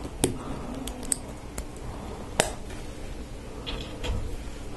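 Small plastic LEGO Technic parts clicking as they are handled and pinned together by hand: a handful of separate sharp clicks, the loudest about two and a half seconds in.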